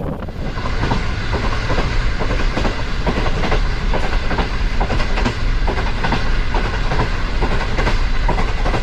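Train wheels clattering over rail joints in a steady clickety-clack as the train rolls along, over a continuous rumble.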